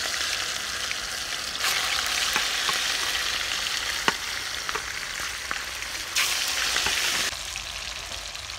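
Pieces of turmeric-rubbed kotra fish frying in hot oil in a black iron kadhai: a steady sizzle with scattered sharp pops. The sizzle swells about two seconds in and again about six seconds in.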